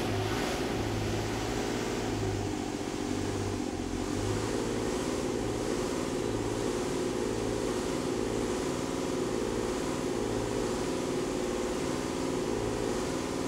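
Vintage electric tramcar running: a steady mechanical hum with a low, uneven pulsing underneath.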